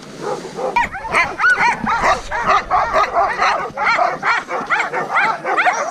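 A team of harnessed sled dogs yelping and barking, eager to pull, with many short high calls overlapping one after another, starting about a second in.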